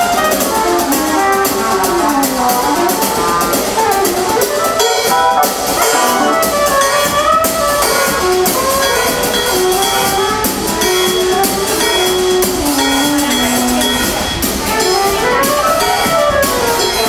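Live band playing an instrumental, a trumpet-led horn melody over drum kit and electric guitar.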